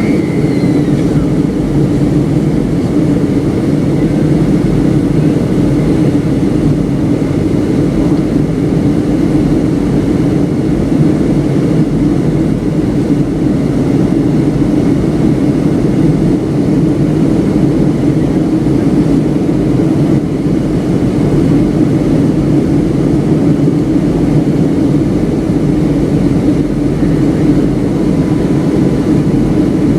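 Steady cabin noise of a Boeing 757-200 airliner in flight on descent, a constant drone of engines and airflow heard from inside the passenger cabin. A faint steady tone joins near the end.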